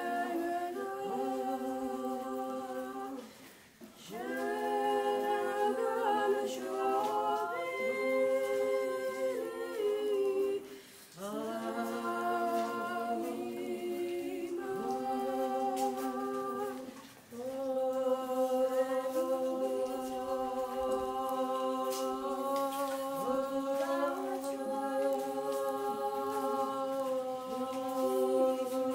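Several voices singing wordless a cappella, humming long held notes together in chords, in phrases broken by short pauses about 4, 11 and 17 seconds in.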